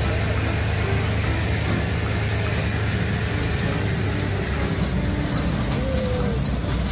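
Diesel engine of an overloaded Mitsubishi light truck running hard on a steep climb: a steady low drone with noise over it.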